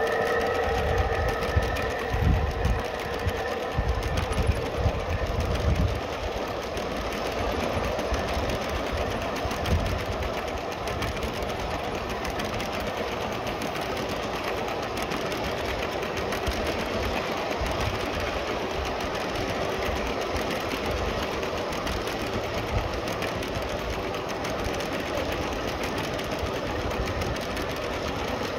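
G scale model coal hopper cars rolling past on outdoor track, their wheels clattering in a fast, steady rhythm. A held tone stops about two seconds in, and a few low thumps come in the first six seconds.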